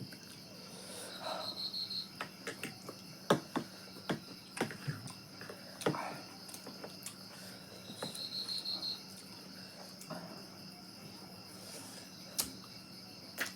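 Eating sounds: scattered short clicks and smacks of chewing and utensils. Behind them a cricket chirps twice in short pulsed trills over a steady insect drone.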